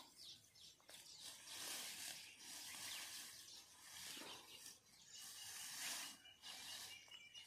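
Near silence outdoors: a few faint rustles, and a bird's thin high call near the end.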